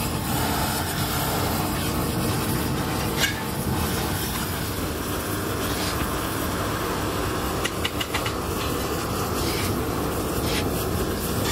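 Steady mechanical rumble and hiss of foundry machinery, with a few sharp clicks and scrapes as a shovel works moulding sand into a casting flask.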